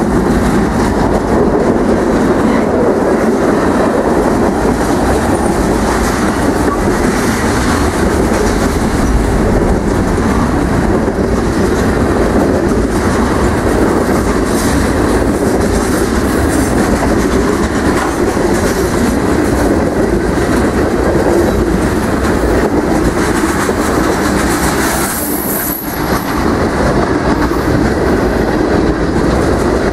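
Mixed freight train rolling past at close range, its diesel locomotive going by first and then a long string of tank cars and covered hoppers: a steady loud rumble with wheels clickety-clacking on the rails.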